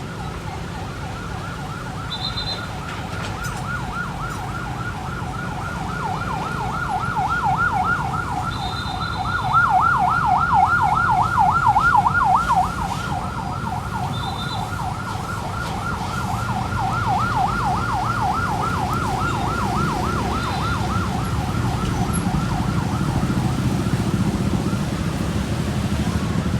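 Bus musical horn of the telolet/basuri type sounding a fast, evenly repeating siren-like warble, loudest for a few seconds in the middle and stopping a few seconds before the end. A bus engine's low rumble runs underneath and grows louder near the end.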